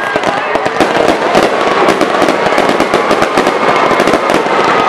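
Close, dense applause with cheering: many sharp, irregular claps, with a few shouts or whoops over them.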